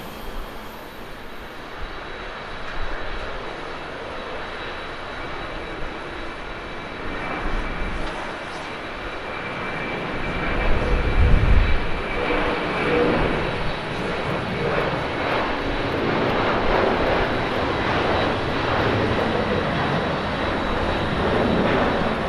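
Jet engines of a Japan Airlines Boeing 767-300ER at takeoff thrust on its takeoff roll, a steady rumbling jet noise that swells sharply about ten seconds in and stays loud through rotation and lift-off.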